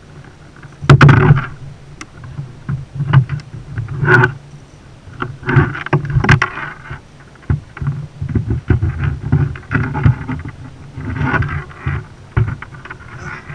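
Irregular knocks and bumps on a fishing kayak as a freshly caught blackfin tuna is handled and stowed in the hull. The loudest knock comes about a second in.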